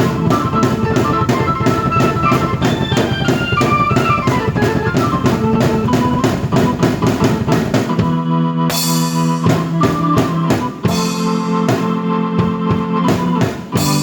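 Drum kit and keyboard played together: a fast, even beat under a keyboard line that steps downward, then about eight seconds in a crash and held keyboard chords broken up by drum hits.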